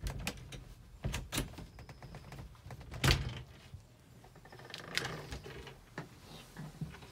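Knocks, clicks and thuds of a person moving about inside a motorhome, the loudest thud about three seconds in. Near the end come more clicks and knocks as the wooden washroom door is opened.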